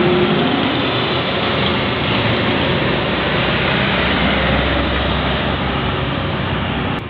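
Tour bus passing close by on its way uphill: a steady wash of diesel engine rumble and tyre noise, with the low rumble swelling around the middle before it cuts off suddenly near the end.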